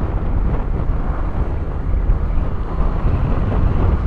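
Steady low rumble of wind on a motorcycle-mounted camera microphone fitted with a furry wind cover, mixed with the motorcycle's running and road noise at low road speed.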